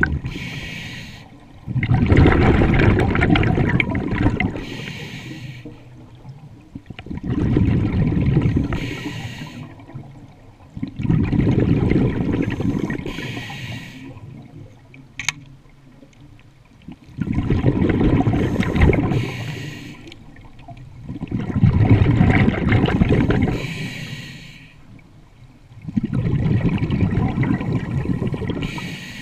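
Scuba regulator exhaust bubbles heard underwater: a diver breathing out through the regulator in long bubbling surges about every four to five seconds, with quieter pauses between them while breathing in.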